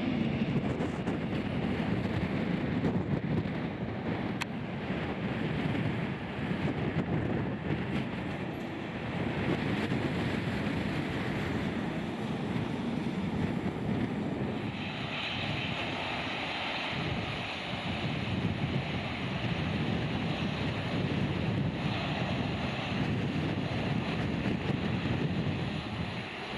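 Jet airliner engine noise during takeoff, mixed with strong typhoon wind gusting on the microphone. The noise is steady and rushing, and it turns brighter and hissier about halfway through as the wind takes over.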